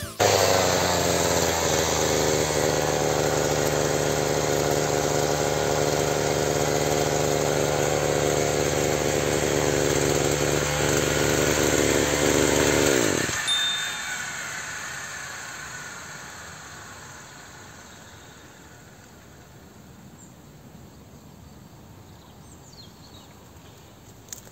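Petrol brushcutter, fitted with a replacement cutting-blade disc, running steadily at an even pitch. About 13 seconds in, the engine cuts off and the sound dies away over several seconds.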